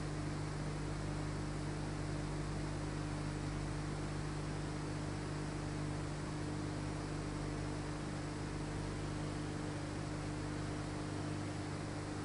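Steady electrical hum with hiss, unchanging throughout, and no sound of the carving work.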